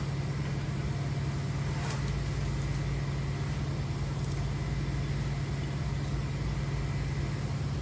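Steady low machine hum, with a few brief faint rasps over it.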